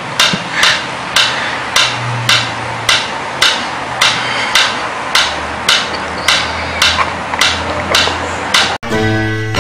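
Mechanical pendulum metronome ticking steadily, about two and a half sharp clicks a second.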